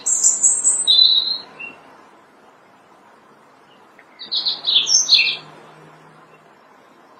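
European robin singing: two short phrases of high, thin, rapidly changing notes, the first at the start and the second about four seconds in, with a pause between them.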